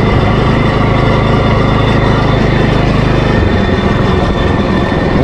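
Small engine of a homemade go-kart-style trike running at steady high revs under throttle, with wind rushing over the helmet-mounted microphone; the engine note drops about three and a half seconds in as the throttle comes off.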